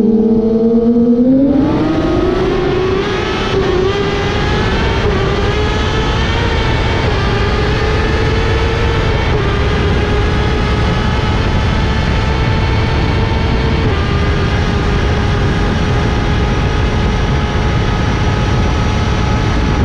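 A vehicle engine climbing in pitch over a couple of seconds, then running at a high, nearly steady pitch with a heavy rush of wind and road noise beneath it.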